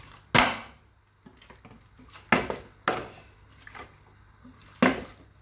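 Partly filled plastic water bottle knocking onto a tiled floor as it is flipped: four sharp knocks, the loudest about a third of a second in, two close together around two and a half to three seconds, and one near the end.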